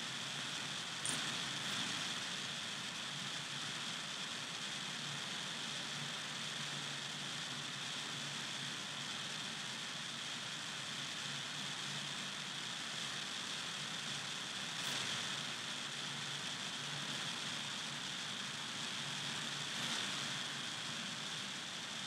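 Steady background hiss with a faint low hum, the recording's own room and microphone noise, with a few faint ticks about a second in and again later.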